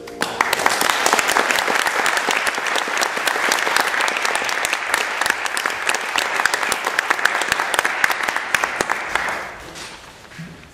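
Audience applauding, with dense steady clapping that dies away about nine seconds in.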